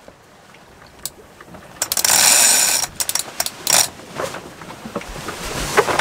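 Sailboat winch ratchet clicking and a line running through blocks as the spinnaker's tack line is hauled tight. The sound comes in irregular bursts, the loudest from about two to three seconds in.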